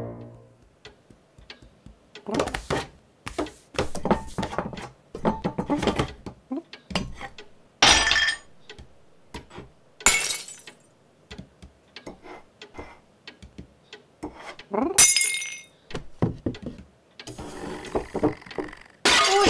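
Cartoon sound effects of a cat on a mantelpiece: many small taps and knocks, and four times an ornament knocked off and smashing, with the loudest crash near the end.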